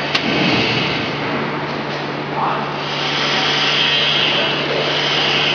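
Vacuum membrane press running through its pressing cycle: a steady machine hum with a constant low tone under an even hiss that grows brighter about three seconds in, and one sharp click just after the start.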